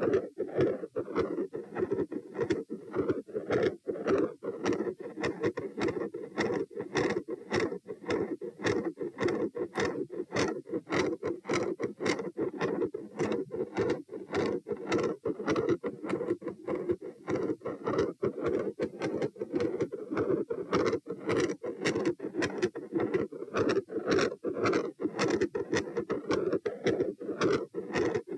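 Heart sounds through a stethoscope: repeated beats over an unbroken hum, a continuous machinery murmur that comes on when the person stands.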